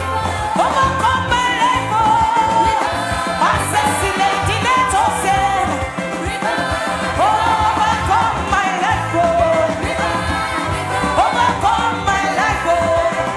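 Worship music with singing: a sung melody that slides between notes over a continuous band backing.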